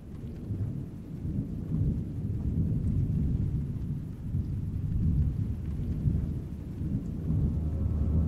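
Low rolling thunder rumble that fades in and swells and ebbs. About seven seconds in, a steady low drone begins beneath it.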